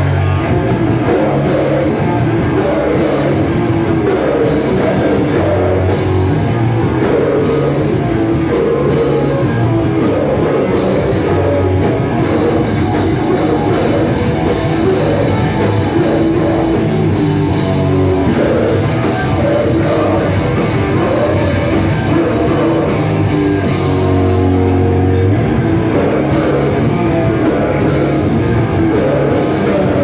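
A heavy rock band playing live: distorted electric guitars, bass and a drum kit, with a singer's vocals over them, loud and continuous.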